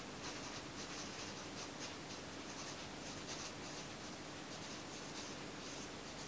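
Faint, irregular scratching and rustling of paper over a low steady hum of room tone.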